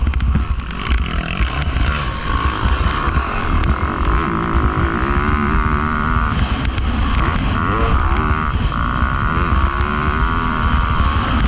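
Motocross dirt bike engine running hard, its pitch rising and falling as the throttle is worked and gears change while the bike is ridden around the track.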